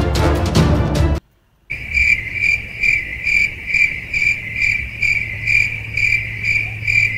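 Dramatic background music cuts off about a second in, and after a brief silence a cricket-chirping 'awkward silence' sound effect starts: even chirps at about two a second over a faint steady hum.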